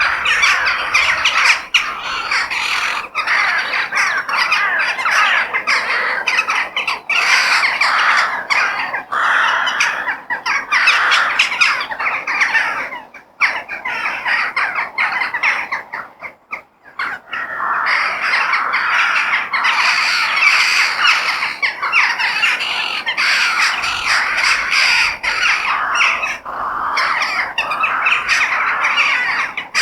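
A flock of crows cawing and squawking, many calls overlapping into a dense, continuous chorus, with a brief lull about halfway through.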